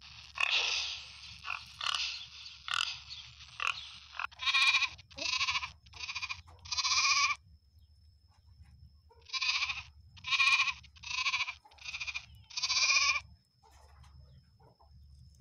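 Goat bleating: a run of four short, quavering bleats about four seconds in, then five more a couple of seconds later. Before them, a few seconds of rougher, noisier calling.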